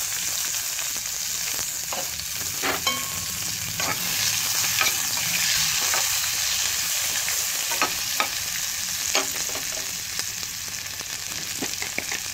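Chopped onions frying in hot sesame oil in a kadai, a steady sizzle, while a spoon stirs them and knocks against the pan in scattered sharp clicks. This is the tempering stage of South Indian cooking, with mustard seeds and dried red chillies in the oil.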